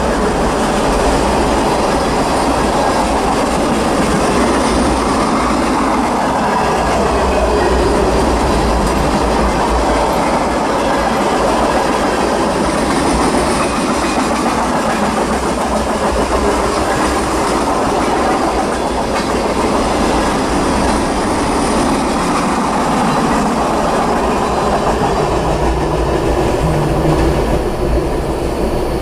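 Norfolk Southern freight train's cars rolling past, a steady, loud rumble of steel wheels running on the rails.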